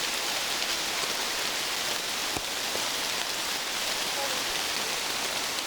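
Steady rain falling, an even hiss with a few faint drip-like ticks.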